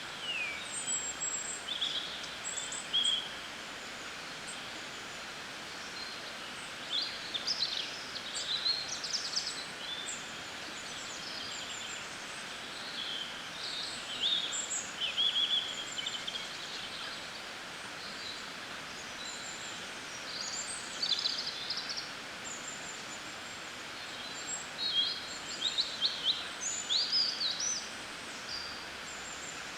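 Several songbirds singing in bouts of short, high chirps and trills over a steady rush of river water.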